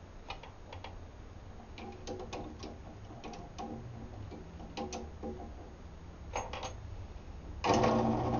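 Scattered light clicks and taps of parts being handled and set up, then near the end a drill press motor switches on and runs steadily.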